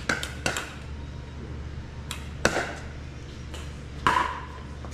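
Pickleball paddles striking a hard plastic pickleball in a doubles rally: the serve at the start, then loud pocks about two and a half and four seconds in, each ringing briefly in the hall, over a steady low hum.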